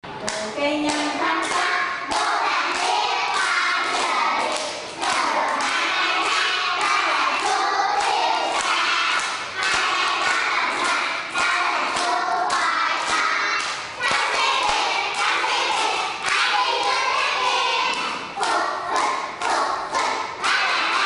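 Young children singing a song together and clapping their hands in time, about two claps a second, with the teacher clapping along.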